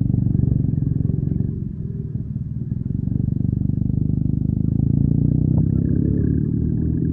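Daytona Hobby 50 motorcycle engine running while riding. The engine note drops back about two seconds in, then its pitch climbs steadily near the end as the bike accelerates.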